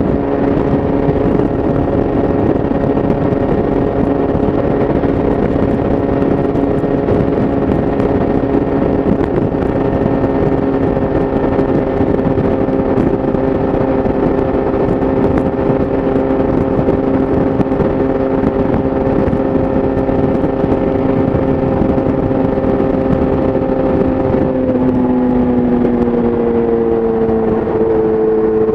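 Yamaha YZF-R6's inline-four through an Akrapovic exhaust, held at a steady engine speed at highway pace with wind noise. About three quarters of the way through the engine note glides down and settles at a lower, steady pitch.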